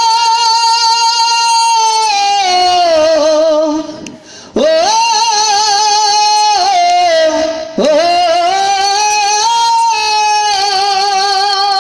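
A man singing the drawn-out closing notes of a Bengali folk song through a microphone and loudspeaker: three long held notes that waver in pitch, with short breaks for breath about four and eight seconds in.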